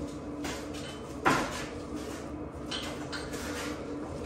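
Metal clanks and knocks from a K24 engine on its K-frame being shifted by hand into place under a car, with one sharp clank about a second in.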